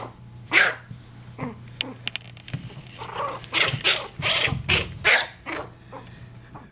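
Yorkshire Terrier puppy, about five and a half weeks old, giving short high yips while it plays with a rope toy, one about half a second in and a quick cluster of them past the middle.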